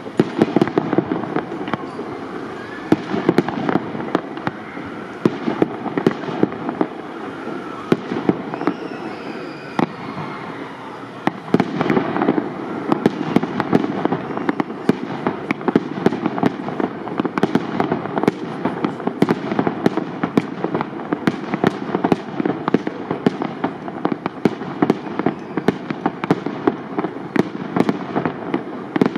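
Aerial fireworks display with shells of up to 75 mm: a dense, continuous run of bangs and crackling reports, which thins briefly about ten seconds in, then picks up again.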